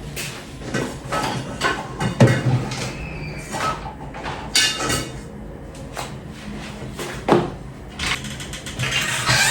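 Kitchen clatter: a string of knocks and clinks as dishes, containers and utensils are picked up, moved and set down, with a cupboard or door knocked shut.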